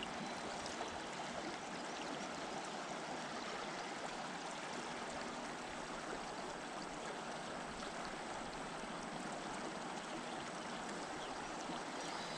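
River water flowing steadily, a constant, even rush of moving water.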